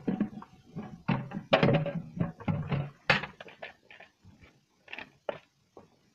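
Irregular knocks and clunks, densest and loudest in the first three seconds and thinning out after, from feeding chores: plastic pails of ground ear corn being handled and cattle eating at steel hay feeder panels.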